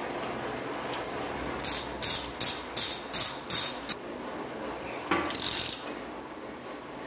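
Ratchet socket wrench clicking on the crank bolt of a square-taper bicycle crankset as the bolt is tightened: a quick run of about seven short ratcheting strokes, about three a second, starting about a second and a half in, then one longer ratcheting stroke about five seconds in.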